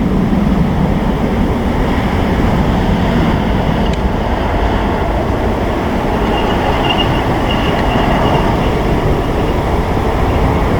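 Steady, loud rumble of a Boeing 747-8F freighter's jet engines as it lands, mixed with strong wind on the microphone, with a faint high whine coming in about six seconds in.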